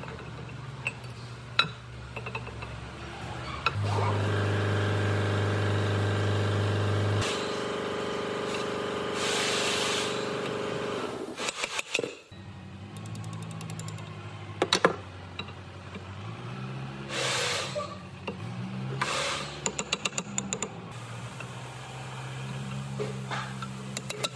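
Steel parts clinking and tapping as a gear is fitted and worked into a wheel loader's planetary hub with hand tools. A steady low hum with overtones runs underneath and is loudest a few seconds in.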